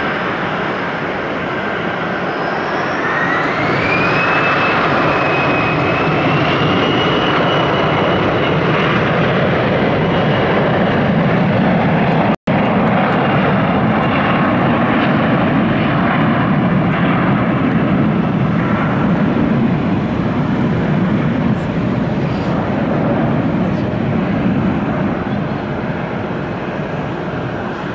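IBEX Airlines regional jet's turbofan engines spooling up for takeoff: a whine rises in pitch a few seconds in, then the steady roar of takeoff power carries on, with a momentary dropout about halfway through.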